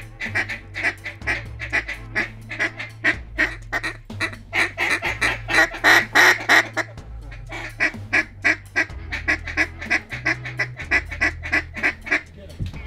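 Duck quacks in a fast, unbroken run of several calls a second, loudest about six seconds in.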